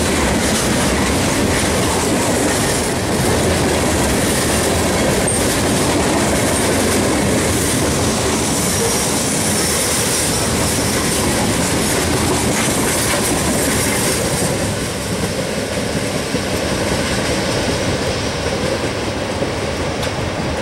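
Freight train cars rolling past close by, a steady loud noise of wheels on rail. It drops off about 15 seconds in as the last cars go by.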